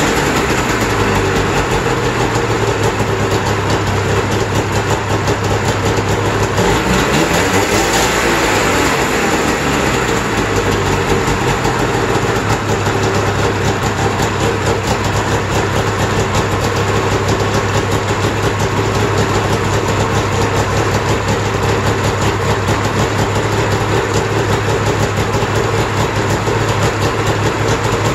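Snowmobile's 550 cc two-cylinder two-stroke engine idling steadily, running again after sitting for years. About eight seconds in, the revs rise briefly and settle back to idle.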